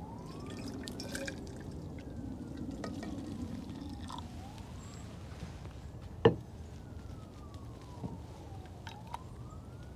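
Distant emergency-vehicle siren wailing faintly, slowly rising and falling in pitch. A sharp click about six seconds in, with a few fainter clicks and taps around it.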